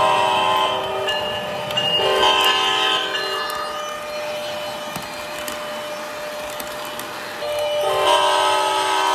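O-gauge model electric locomotive's onboard sound system blowing its horn: one blast ending about half a second in, another of about a second at the two-second mark, and a third starting near the end. Between the blasts the train's wheels roll along the three-rail track under a steady hum.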